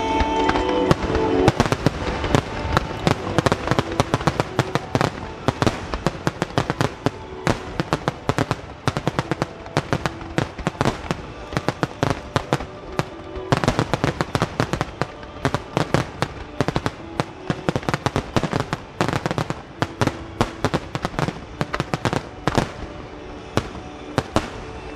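Large fireworks display going off as a dense barrage of shell bursts and crackling, many sharp bangs a second. Music plays at first and fades out about a second and a half in.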